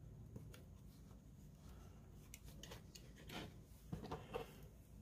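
Faint handling noises of a plastic model boxcar and a decal's clear transfer sheet: a few small clicks and rustles over a low room hum, most of them between about two and a half and four and a half seconds in.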